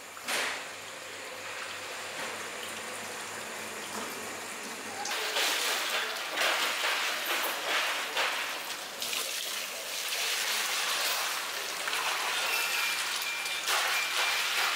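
Water from a garden hose running and splashing over a whole tuna and the wet concrete floor, growing much louder about five seconds in.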